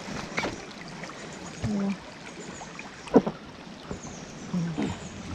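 Shallow river water running over rocks around a grounded boat, with scattered knocks and one sharp knock about three seconds in.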